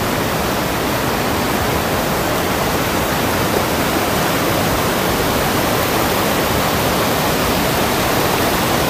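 Sagana River rushing over rapids: a steady, even rush of white water.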